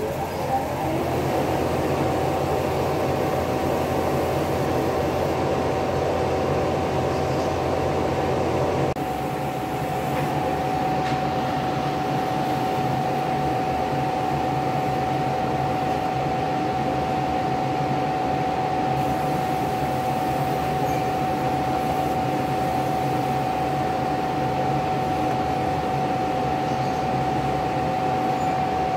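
A machine running with a steady hum and a constant high whine. A lower hum drops out about nine seconds in, and the machine runs on more evenly after that.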